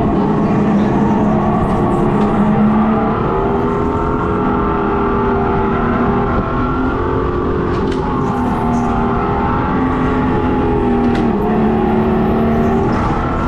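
Electric go-kart's synthetic engine sound, played from a speaker behind the seat, rising and falling in pitch several times with the throttle over a steady low rush of driving noise.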